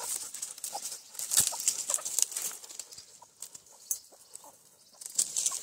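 Free-range chickens clucking in short calls, mixed with a run of brief sharp clicks and rustles.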